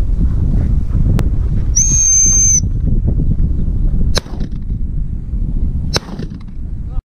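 Wind buffeting the microphone, with one long, high whistle blast from a handler's dog whistle about two seconds in. Then two shotgun shots about two seconds apart, near the four- and six-second marks. The sound cuts off suddenly just before the end.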